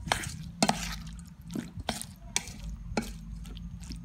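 A spoon stirring thick shrimp batter in a stainless steel bowl. It scrapes and clinks against the metal in sharp, irregular knocks about every half second.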